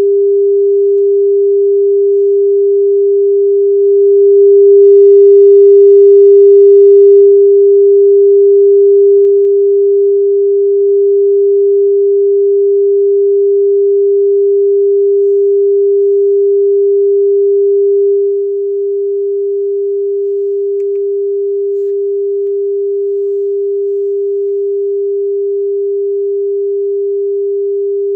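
Steady single-pitch test tone from the Pioneer CT-939 cassette deck's output while the record level is adjusted. It swells about four seconds in, with faint higher overtones added at its loudest, then steps down several times and drops again later.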